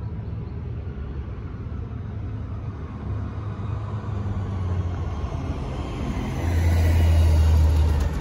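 Low rumble of street traffic. Near the end a natural-gas UPS delivery truck drives by close, its engine getting louder and becoming the loudest sound.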